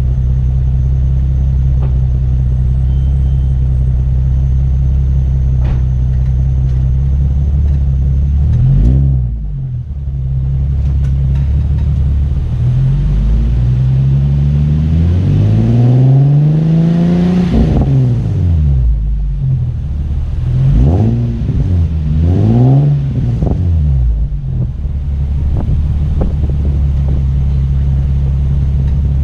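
Nissan 350Z's 3.5-litre V6 running through an aftermarket dual exhaust: a steady idle, a short blip of the throttle about nine seconds in, then one long rev that climbs and falls back, two quick blips, and back to idle.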